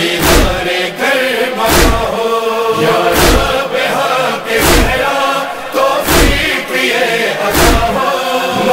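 Noha lament: a chorus of male voices chanting between sung verses over a heavy, even beat that falls about every second and a half.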